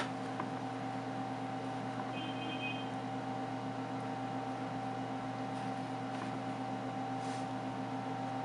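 A steady mechanical hum, like a fan or appliance running, with a short high double tone about two seconds in and a few faint ticks near the end.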